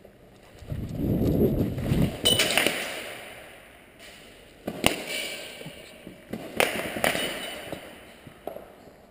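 A low rumble of movement on the camera microphone, then three or four sharp airsoft gunshot cracks a couple of seconds apart, each ringing out in the warehouse's echo.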